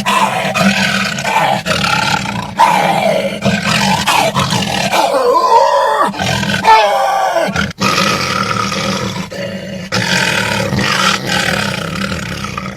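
A lion-like roar made by a man roaring into a trash can, the foley trick behind a film lion's roar. It comes as a run of long, pitch-gliding roars with several sudden cuts between takes.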